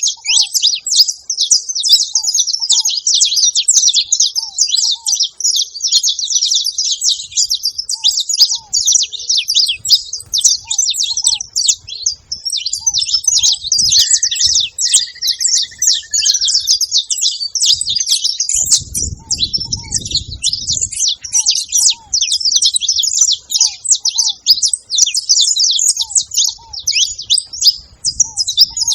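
A flock of saffron finches chattering, a dense, continuous mass of overlapping high chirps.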